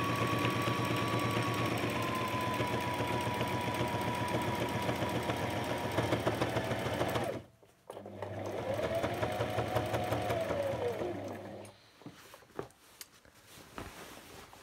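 Brother SM2700 electric sewing machine stitching through uniform fabric at a steady speed, then stopping abruptly about seven seconds in. After a brief pause it runs again for about four seconds, speeding up and then slowing to a stop, followed by light handling clicks.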